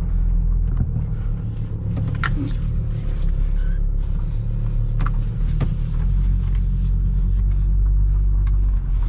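Car engine idling at low revs while warming up after a cold start, a steady low rumble. A few faint clicks.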